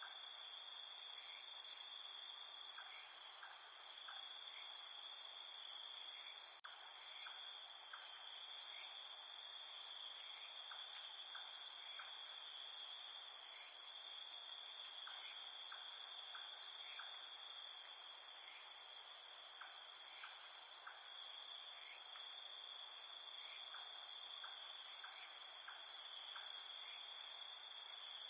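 Steady chorus of crickets and other insects, several high trilling layers running at once, with faint short chirps scattered through. The sound cuts out for an instant about seven seconds in.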